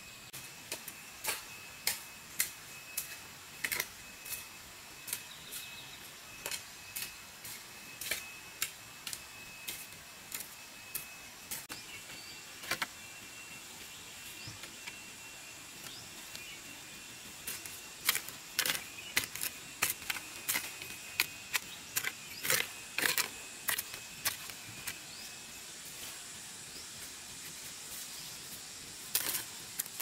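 Wooden-handled hand hoe chopping into garden soil and weeds: a steady run of sharp strikes, about one or two a second, with a couple of pauses.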